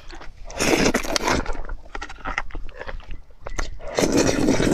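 Saucy noodles slurped into the mouth in two long wet bursts, about half a second in and again near the end, with small wet chewing clicks between.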